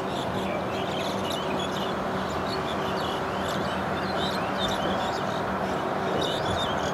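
Steady outdoor background noise with a constant low hum, and birds chirping again and again over it.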